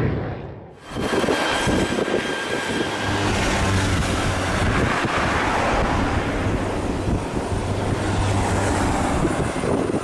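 Jet aircraft engine noise, loud and steady with a faint high whine, after a brief dip in level about a second in.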